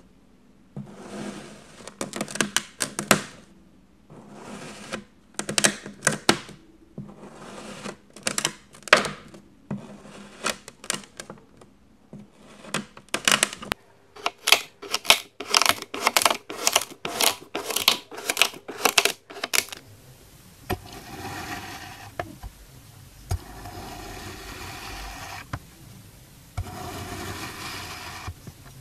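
Kinetic sand being sliced with a knife, giving crisp crunchy crackles: short clusters of quick cuts, then a steady run of about two cuts a second. About two-thirds through it changes to a longer, grainier scraping as a long metal blade pushes through a thick dome of sand.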